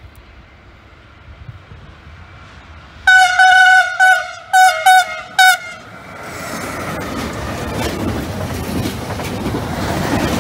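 Horn of a DB Cargo E191 (Siemens Vectron) electric locomotive, about three seconds in: a long blast followed by several short toots. Then the locomotive and its train pass with a rising rumble and clattering wheels.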